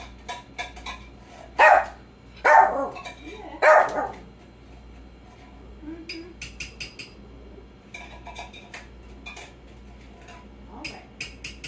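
A dog barks three times in quick succession, begging for food. Light clicks and clinks follow.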